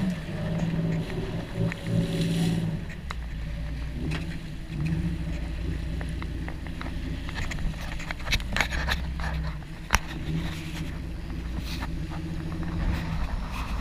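Boat engines running, the engine note coming and going in stretches over a constant low rumble, with wind and water rushing past. A cluster of sharp clicks comes about eight to ten seconds in.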